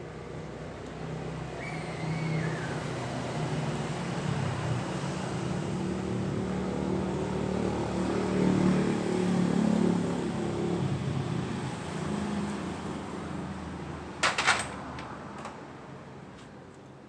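A motor vehicle's engine that grows louder for about ten seconds and then fades away. A couple of sharp clanks sound about fourteen seconds in.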